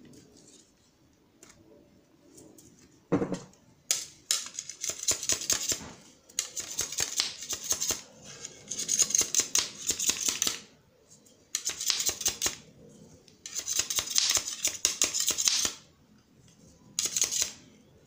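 Repeated metallic scraping as a knife blade is drawn along a steel rod, in about seven strokes of half a second to two seconds each, with a sharp knock about three seconds in.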